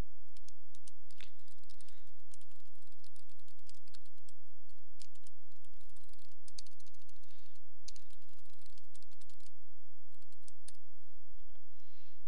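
Typing on a computer keyboard: a quick, irregular run of keystrokes for about nine and a half seconds, a short pause, then a few more keystrokes, over a steady low electrical hum.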